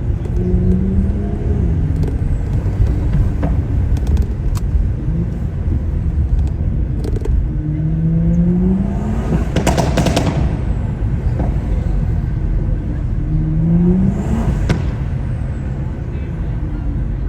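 Tuned BMW's exhaust as the car accelerates hard three times, the engine note rising with each pull, followed by sharp pops and crackles on lifting off, loudest about ten seconds in. A steady low road rumble runs underneath.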